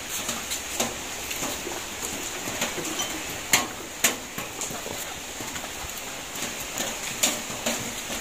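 Scattered light clicks and knocks of engine parts and a piston-ring box being handled, with two sharper knocks about half a second apart near the middle.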